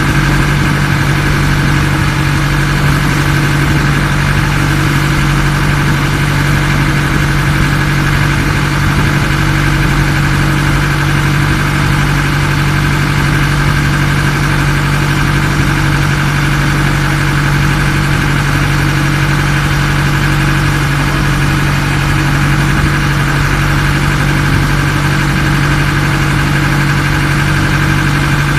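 Ferry boat's engine running steadily at a constant speed, loud and unchanging, with a low hum and a higher whine.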